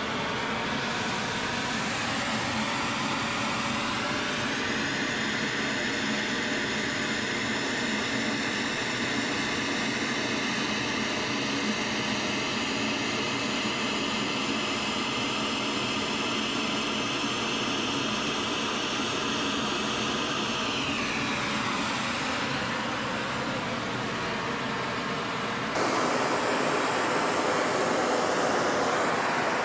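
Oxy-acetylene powder spray-welding torch burning with a steady hiss while spraying metal powder onto a shaft. Under the hiss a whine rises in pitch a few seconds in and drops away about two-thirds through; near the end the hiss turns suddenly louder and fuller.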